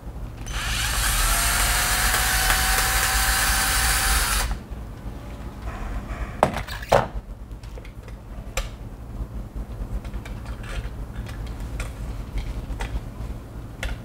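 Cordless drill-driver running steadily for about four seconds, backing a screw out of a wall switch. Then two sharp clicks and light plastic taps as the switch is handled and pulled from the wall box.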